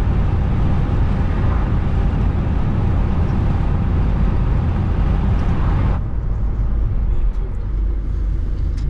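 Steady road and tyre noise with engine rumble heard from inside a moving car's cabin. The higher hiss drops abruptly about six seconds in, leaving mostly the low rumble.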